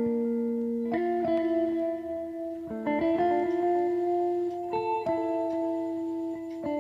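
Background instrumental music played on a plucked string instrument like a guitar. Its held notes change every second or two.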